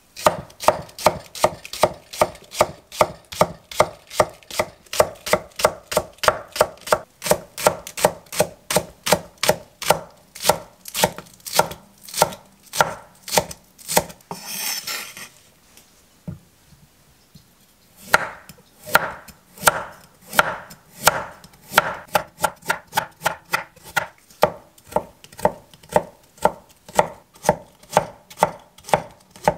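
Square cleaver chopping Korean green onion into rings on an end-grain wooden cutting board, knocking steadily about two to three times a second. A short rustling scrape comes about halfway, a pause of a couple of seconds follows, and then the chopping resumes, on carrot strips near the end.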